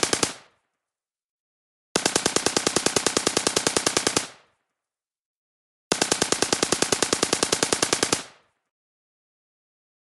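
AK-47 assault rifle firing on full automatic, about ten rounds a second. The tail of one burst dies away at the start, followed by two bursts of a little over two seconds each, about four seconds apart.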